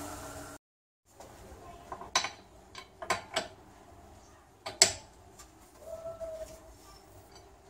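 A handful of sharp metallic clinks and clanks from a steel wheel brace knocking on the wheel bolts as it is fitted and worked to loosen them. The loudest comes about five seconds in.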